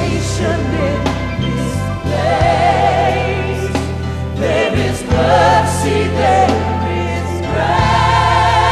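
Gospel worship music: singers holding long notes with a wide vibrato, several times over, over steady bass and band accompaniment.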